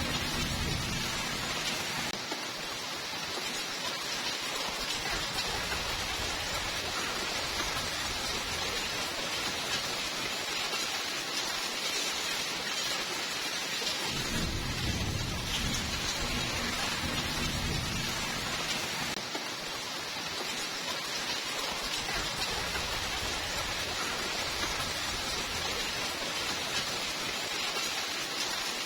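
Steady heavy rainfall, an even hiss of falling rain, with a low rumble of thunder at the start and another rolling for several seconds about halfway through.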